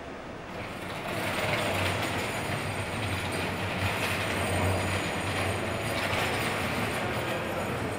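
Ambulance engine running as the ambulance pulls away, a low hum under a broad rushing noise that swells about a second in and then holds steady.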